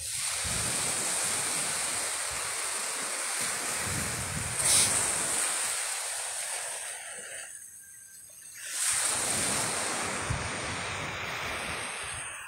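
Surf washing onto a sand beach: a steady rushing hiss that eases for a couple of seconds past the middle and then swells back, with low wind rumbles on the microphone.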